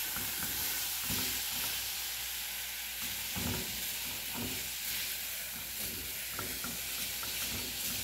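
Diced smoked sausage and onion sizzling in a metal pot, frying in the sausage's own fat with no oil. A spatula stirs and scrapes across the pot every second or so.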